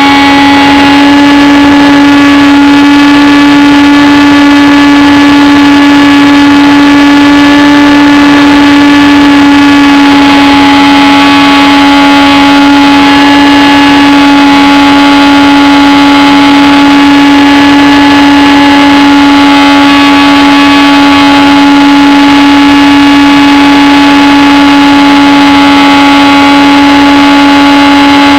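HobbyKing Bixler's 2200kv brushless electric motor and pusher propeller running at steady throttle in flight: a loud whine holding one nearly constant pitch, picked up close by the wing-mounted camera.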